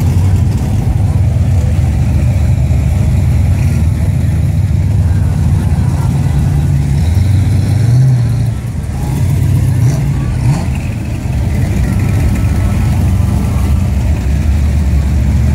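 Classic cars and hot rods crawling past one after another, their engines running low and loud, with a brief rev about halfway through. Crowd chatter underneath.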